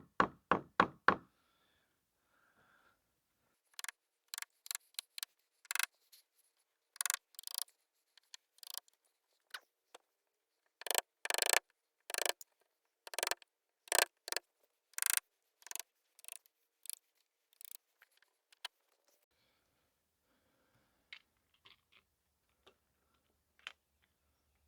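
Hand tool cutting away wood to a marked depth. A quick run of taps in the first second is followed by short, irregular scraping strokes, one or two a second, with pauses, growing fainter and sparser near the end.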